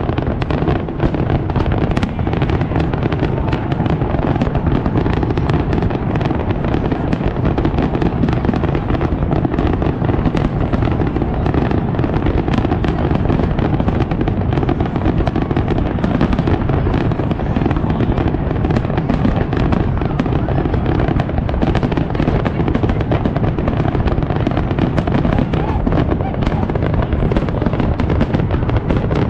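Aerial fireworks display going off in a dense, unbroken run of overlapping bangs and booms.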